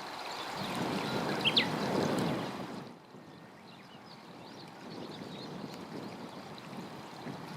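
A rushing noise swells and then drops away abruptly about three seconds in, with a short, sharp, falling bird call near its loudest point. After that, faint scattered songbird chirps over a quiet outdoor hush.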